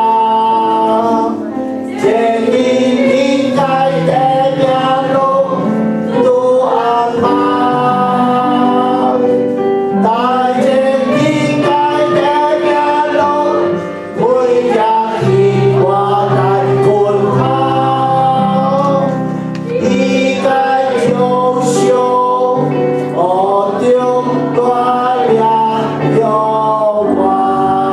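Men's and women's voices singing a worship song together with instrumental accompaniment, in phrases of long held notes over a steady bass.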